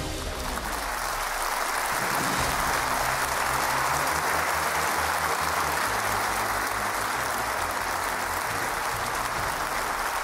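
Studio audience applauding steadily, with the low notes of the show's theme music still playing underneath.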